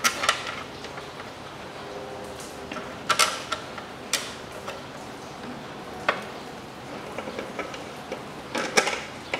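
Metal parts and tools being handled in a car's engine bay: scattered sharp clicks and clinks, about half a dozen spread unevenly, some ringing briefly. The loudest comes near the end.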